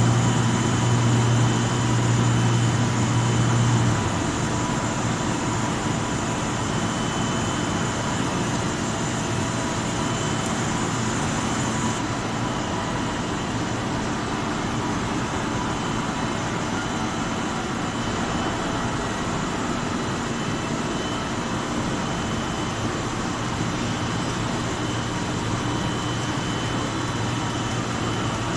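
Copper tube welding and corrugation production line running: a steady machine din with a strong low hum that stops about four seconds in, and a high hiss that cuts off about twelve seconds in, over a thin steady whine.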